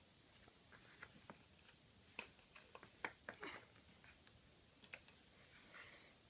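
Faint, scattered light clicks and taps of small objects being handled on a table, such as paint tubes and a brush. The sharpest click comes about three seconds in, and there is a soft rustle near the end.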